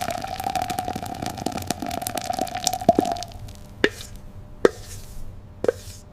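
Cartoon sound effects of a food-processing machine at work: a steady hum with rapid clicking for about three seconds, then four separate plops about a second apart.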